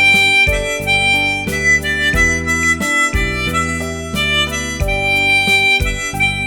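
Harmonica playing a slow melody of long held notes over a musical accompaniment with a low bass line.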